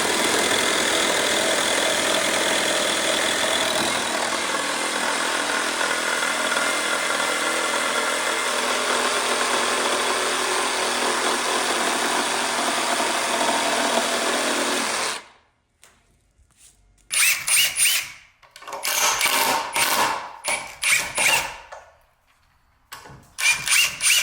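A power tool runs steadily for about fifteen seconds and cuts off suddenly, then after a short pause is triggered in several short bursts.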